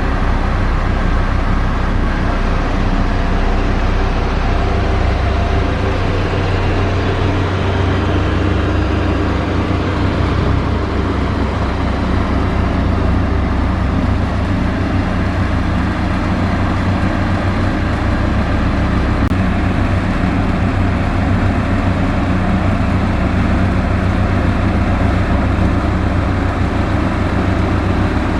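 Heavy earthmoving machine's diesel engine running steadily under load. A loud, continuous low hum with its lowest note shifting slightly about a quarter of the way through.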